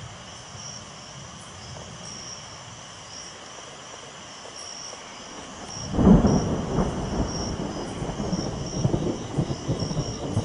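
Night insects, likely crickets, chirp in a steady high pulsing trill. About six seconds in, thunder breaks in suddenly and loudly, then rumbles on in uneven surges as a storm arrives.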